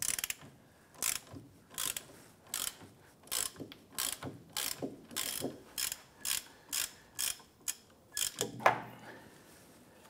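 Hand ratchet with a shallow 15 mm socket clicking in a steady run, about three strokes a second, as it backs out a loosened rear wheel hub bolt. A louder knock comes near the end, then the clicking stops.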